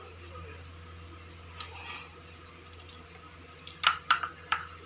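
Light clicks and taps of hands handling crisp fried puris on a ceramic plate while stuffing them with potato filling, in a quick run of about five clicks near the end, over a steady low hum.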